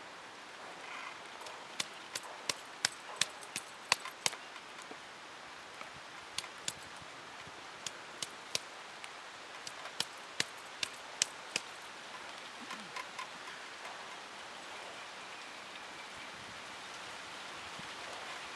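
A round hand stone crushing thuthuvalai (climbing brinjal) leaves on a flat rock, with sharp knocks of stone on stone coming in two quick runs of several strikes, plus a few single knocks, over a steady faint hiss.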